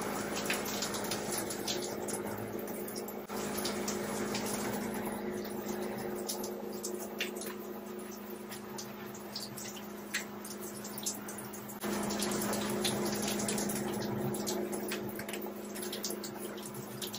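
Shower spray running steadily in a tiled shower stall, with a steady low hum underneath and scattered short clicks. The level changes abruptly twice.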